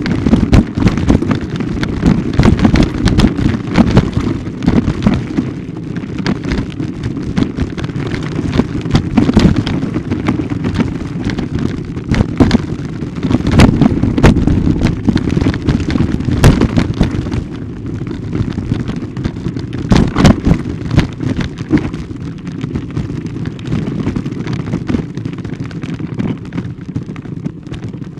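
Loud, continuous rumbling and crackling noise with many sharp knocks, from a camera carried along a forest path: wind buffeting and handling noise on its microphone. It eases slightly near the end.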